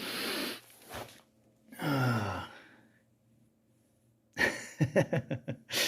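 A man's breath and voice sounds, not words: a breathy exhale, a short sigh about two seconds in, then after a pause a quick run of short voiced bursts.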